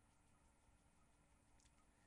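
Near silence: faint room tone with a thin, steady hum.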